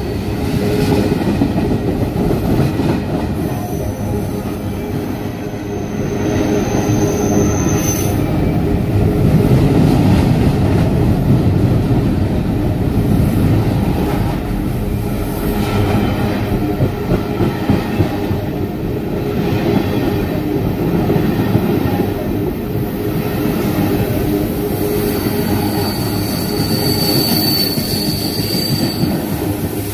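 Freight train of tank cars rolling past: a steady rumble of wheels on rail, with a thin, high wheel squeal about four seconds in and again near the end.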